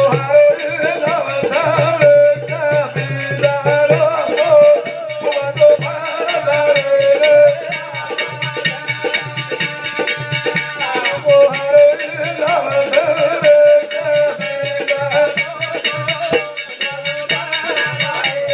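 Banjara devotional bhajan music: a sustained melody line over fast, continuous hand-drum percussion.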